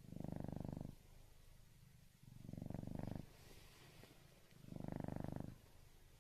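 Domestic cat snoring in its sleep: three low, rattly snores, each about a second long, coming about every two and a half seconds with each breath.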